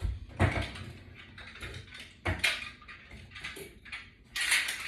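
Clicks, knocks and rustling from exercise equipment being handled, probably while a flat resistance band is fitted to the latch bar. Sharper knocks come about half a second and two seconds in, with a burst of rustling near the end.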